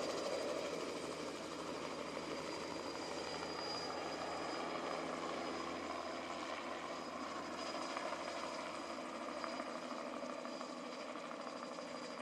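Helicopter engine running with a steady high turbine whine over a broad rushing noise, easing slightly in level toward the end.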